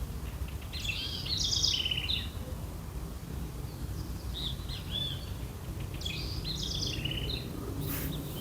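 A songbird singing two short, fast twittering phrases, about a second in and again about six seconds in, with a few single whistled notes between them, over a steady low rumble.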